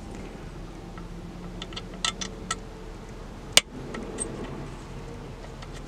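A few light metallic clicks and taps, the sharpest about three and a half seconds in, from an Allen key working the set screws of a car audio amplifier's speaker terminal block, over a steady low hum.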